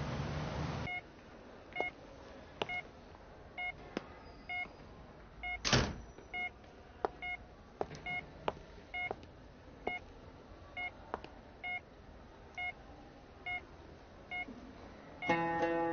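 Bedside patient monitor beeping steadily, about one short beep a second, with scattered soft clicks. The loudest sound is a brief rushing sound about six seconds in. Street noise fills the first second, and guitar music comes in near the end.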